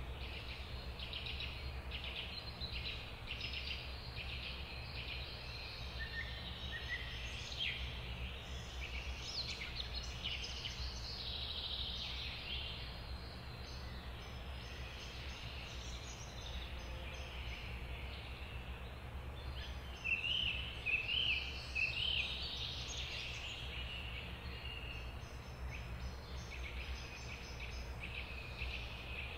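Many birds chirping and trilling in a dense chorus over a low steady hum, with a louder run of calls about 20 seconds in.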